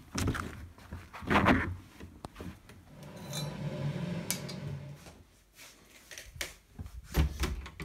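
Scattered knocks, clicks and clatter of objects being handled, with a steady low hum for about two seconds in the middle.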